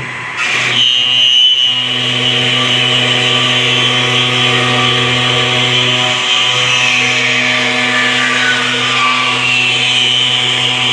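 CNC router spindle cutting wood: a steady machine hum with a hissing cutting noise, which starts about half a second in.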